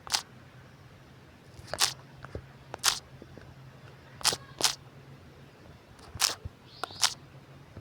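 Irregular sharp clicks of computer keys being pressed while typing, about ten in all, some in quick pairs, over a faint low hum.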